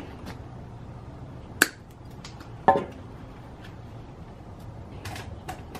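Hand snips cutting a gasket that is too small to fit, trimming it to size: two sharp snaps about a second apart in the middle, with lighter clicks around them.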